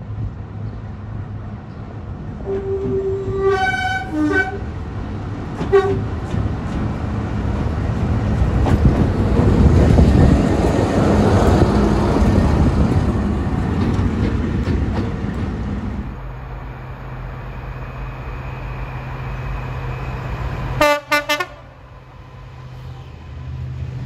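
BR Class 45 'Peak' diesel locomotive 45041 sounding its horn in four short notes, then its Sulzer twelve-cylinder diesel engine getting louder as it pulls past and easing off. Near the end, a different train gives a brief burst of horn notes.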